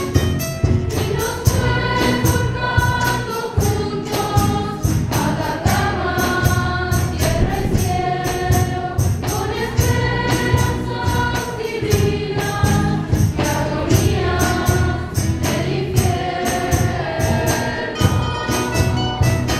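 Children's choir singing in phrases of held notes, accompanied by guitars strummed in a steady rhythm.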